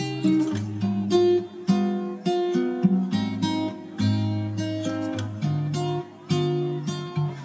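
Background music: an acoustic guitar playing plucked and strummed chords in a steady rhythm.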